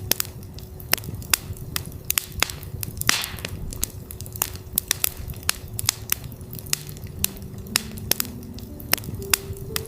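Campfire crackling and popping with irregular sharp snaps and a brief hiss about three seconds in, over a steady 369 Hz tone. Soft pitched synth notes step upward from about seven seconds in.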